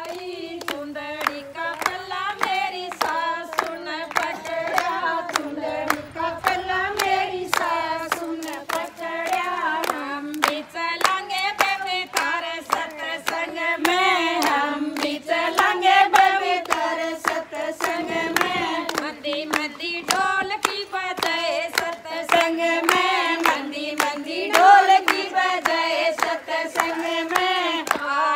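A group of women singing a Hindi devotional bhajan in unison, clapping along in a steady rhythm of about two claps a second.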